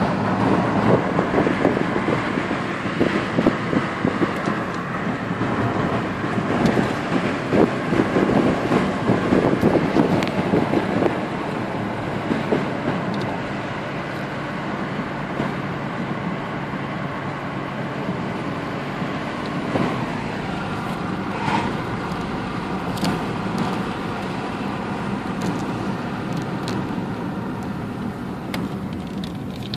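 Interior sound of an Audi A6 1.9 TDI being driven: the four-cylinder turbodiesel engine running under the steady rush of tyres and road. The sound is louder and more uneven for the first ten seconds or so, then settles to a steadier, slightly quieter level.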